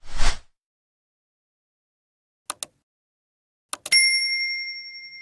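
Sound effects from a subscribe-button animation: a short whoosh, then two quick mouse clicks about two and a half seconds in, another pair of clicks, and a bell ding that rings and fades over about two seconds.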